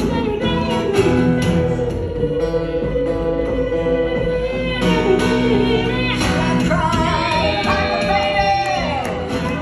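Live acoustic blues played as an instrumental: acoustic guitar and slide guitar, with a wailing lead line that bends and slides in pitch, sliding down strongly a little past halfway.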